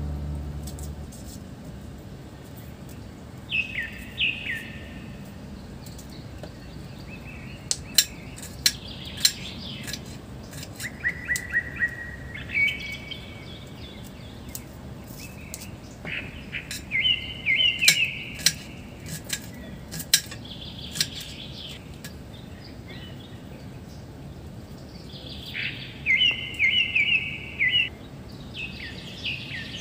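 Birds chirping in several short bursts of quick repeated notes, over a low steady outdoor hiss, with scattered sharp clicks in between.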